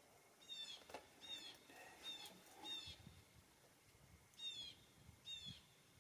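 A bird calling: faint, short, high chirps, four in a row about every three-quarters of a second, then two more after a pause.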